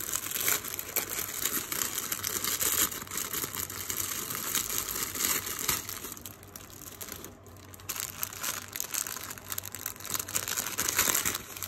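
Cellophane jewelry packaging crinkling and crackling as it is handled and opened. The crinkling eases briefly a little past the middle, then picks up again.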